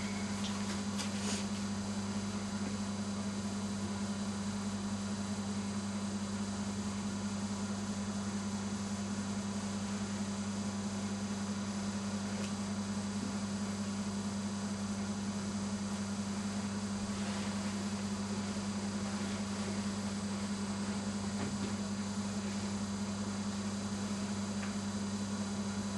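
Steady electrical mains hum, a low even drone over faint hiss.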